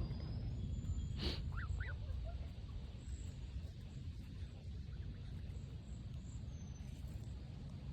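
Two short, high peeps from a gosling about two seconds in, over a steady low rumble, with a single sharp click just before the peeps.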